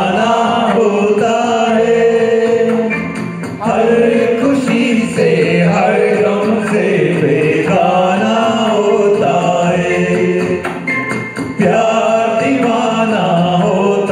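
Men singing a song into handheld microphones, with a steady musical accompaniment beneath the voices.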